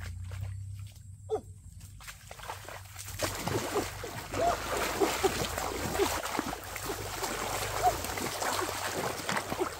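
Splashing and sloshing in shallow muddy pond water: a few quieter steps and clicks at first, then from about three seconds in a busy, continuous churning of water as hands and body push and grope through it.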